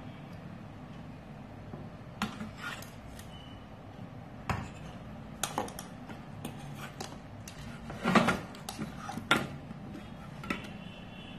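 Scattered light clicks and clinks of small hard objects being handled on a workbench, over a steady low hum. The loudest is a quick cluster of clatters about eight seconds in, with a sharp knock about a second later.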